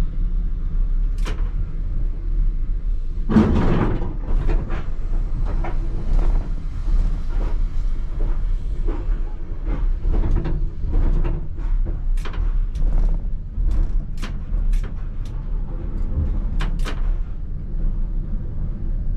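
ČKD Tatra T3R tram running with a steady low rumble, its wheels and body knocking and clacking irregularly over the track, with a louder clatter about three seconds in.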